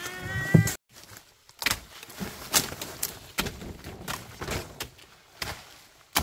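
A short call rising in pitch at the start, then about ten irregular knocks and thuds, the last one sharp and loud near the end.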